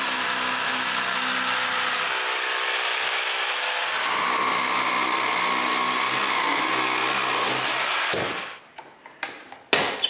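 Festool Carvex jigsaw cutting through a laminated plywood mold, a steady saw run that stops about eight seconds in. A single knock follows near the end.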